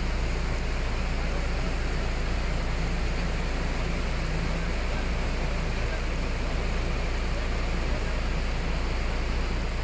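Rushing whitewater of a fast, flooded river rapid together with heavy rain: a steady noise with a deep rumble underneath.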